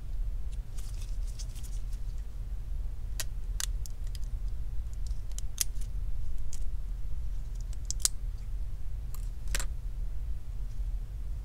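A handful of sharp, separate clicks and light scratching from a replacement iPhone 11 Pro Max screen assembly and its small parts, handled with gloved fingers while its pre-installed proximity-sensor bracket is worked off. A steady low hum runs underneath.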